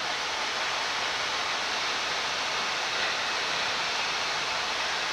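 Steady rushing hiss of air noise on a Boeing 787-9 flight deck in descent, with flaps 5 set.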